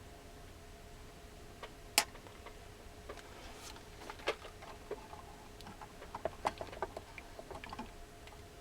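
Light clicks and taps of small tools and parts being handled during soldering work on an electronics board, with one sharper click about two seconds in and a busier patch of clicks later, over a faint steady hum.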